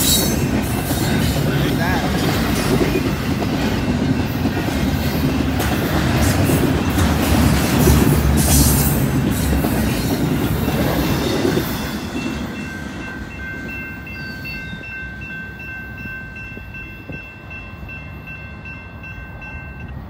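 Double-stacked intermodal well cars rolling past close by, a loud rumble with wheel clatter on the rails that fades away about twelve seconds in as the end of the train passes. After that a grade-crossing warning bell rings steadily as the train recedes.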